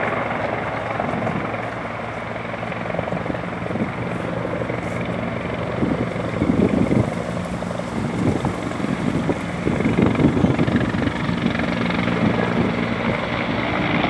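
Firefighting helicopters flying over a lake: a steady rotor and turbine sound, with the beating rotor chop growing louder about six seconds in and again about ten seconds in.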